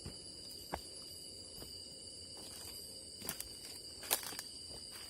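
Steady insect chorus in the forest at night, several high, even trilling tones. A few sharp snaps or crackles, likely footsteps in undergrowth, break in about a second in and again around three and four seconds in.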